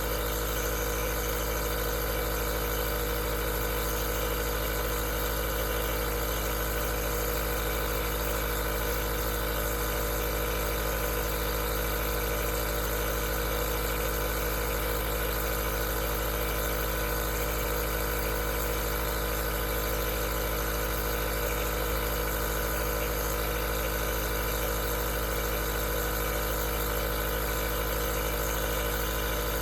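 Aerosol nebulizer running steadily: an even motor hum with a hiss of air.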